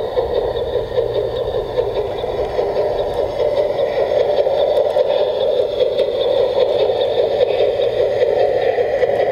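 Garden-railway model steam locomotive and its freight wagons running past: a steady hum of the electric motor and gears with the wheels rolling on the rails, and faint light clicks as the wagons pass.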